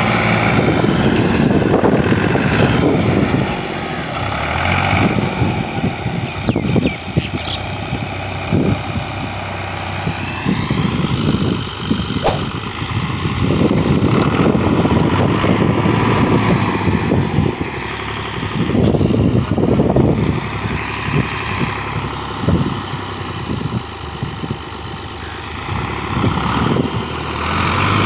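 Al-Ghazi 65 hp tractor's diesel engine working hard under heavy load as it strains to pull a heavily loaded trailer through soft ground. The engine note surges and eases repeatedly.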